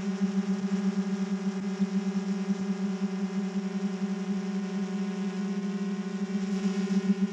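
GoPro Karma quadcopter's motors and propellers in flight: a steady hum with a strong low tone and a ladder of higher overtones, slightly wavering.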